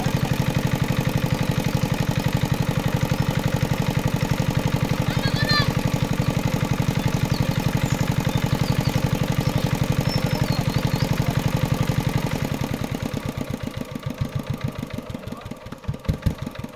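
Small engine-driven water pump running with a fast, steady chug while it pumps water out of a pond. Over the last few seconds its beat slows and the sound fades.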